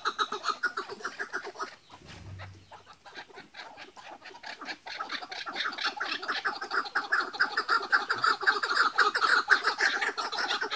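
Caged chukar partridges calling against each other in a fast, even run of clucking "chuk" notes, about seven a second. The calling dies down about two seconds in and builds again from about five seconds to its loudest near the end.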